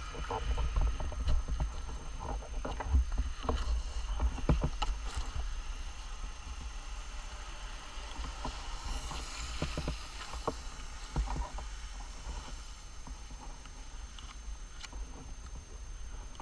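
Low rumble of wind on the microphone, with rustling, clicks and knocks of hands rummaging through a fabric backpack, busiest in the first few seconds.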